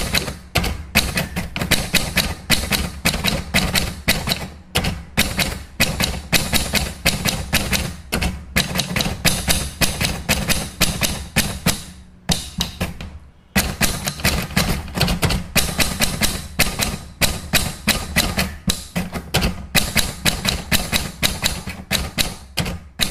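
Typing sound effect: rapid key clicks, several a second, with a short pause about twelve seconds in.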